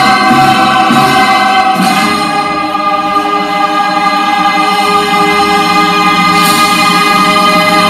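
Music with a choir singing long held chords; the chord changes about two seconds in.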